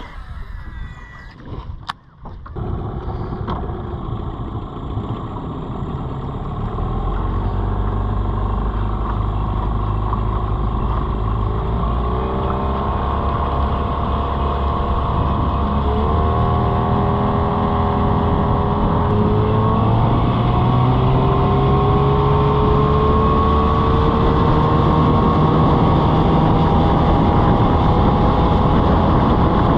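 Small boat motor on a jon boat starting up after a few knocks, then running under way, its pitch climbing in steps as it speeds up.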